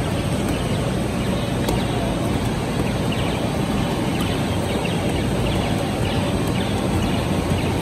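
Steady rumble of the electric air blowers that keep the inflatable games and bounce houses inflated, filling the hall with a constant noise, with a few faint taps from foam bats striking the game's buttons.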